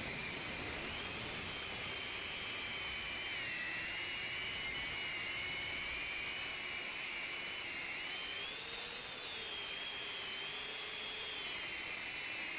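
Ducted drone's electric motors and fans whining in flight, heard from its onboard camera, over a steady rush of air. Several whining tones move up and down in pitch together, dipping about three seconds in and rising briefly about nine seconds in.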